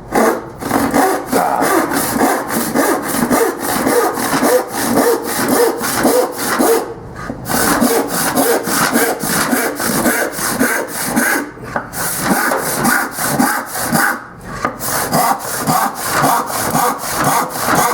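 Disston D8 thumb hole rip saw cutting through wood by hand, a steady run of back-and-forth strokes, about two to three a second, broken by a few short pauses. The blade is freshly sharpened and jointed, and once going it cuts quickly.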